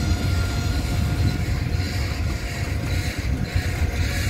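Freight train's boxcars rolling slowly past, a steady low rumble of steel wheels on the rails.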